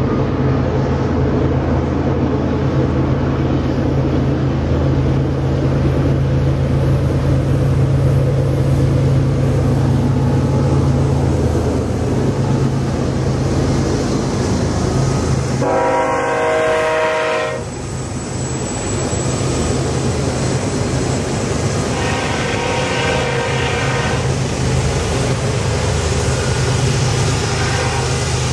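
Diesel locomotives of an approaching BNSF train, their engines running with a steady low drone. Just past halfway the locomotive horn sounds for about two seconds, and a few seconds later it sounds again, more faintly, for about two seconds.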